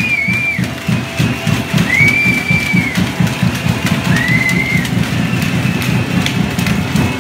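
Steady rhythmic drumming, about four to five beats a second, from the stadium. A high held note sounds three times over it, each under a second.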